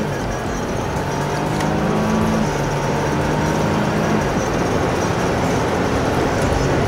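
Steady road and engine noise of a vehicle cruising on a highway, heard from inside the cab. A few faint held tones sound over it in the first few seconds and fade out.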